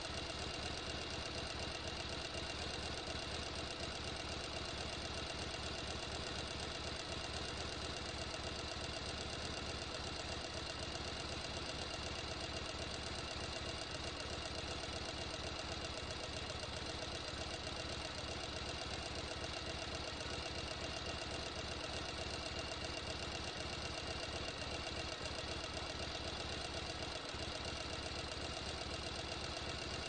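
Sewing machine running continuously at a steady speed, a rapid, even mechanical chatter.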